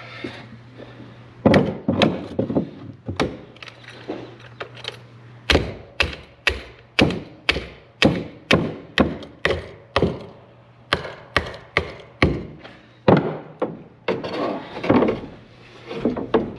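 Repeated sharp knocks and thuds, scattered at first, then about two a second through the middle stretch and looser again near the end, over a steady low hum.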